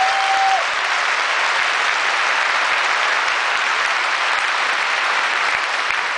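Large audience in a big hall applauding, steady and loud clapping throughout.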